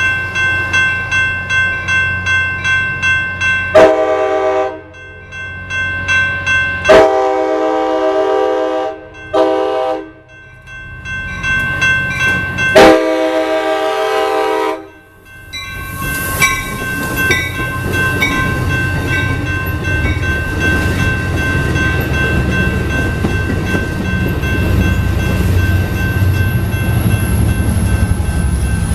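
Grade-crossing bell ringing at about two strokes a second while an Amtrak California passenger train blows its horn in the crossing pattern: long, long, short, long. Then the train rolls through the crossing with a steady rumble of wheels on rail, the bell still ringing underneath.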